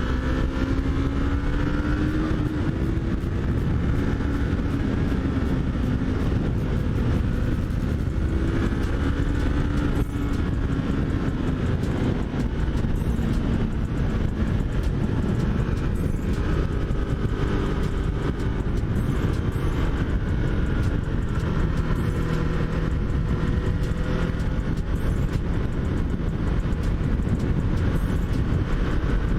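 Yamaha MT-03's 321 cc parallel-twin engine running under way, its pitch rising and falling with the throttle, over a steady rush of wind noise.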